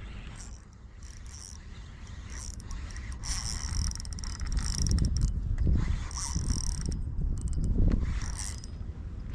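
Fishing reel whirring in several stretches of a second or two each, with short gaps between them, as line runs through it.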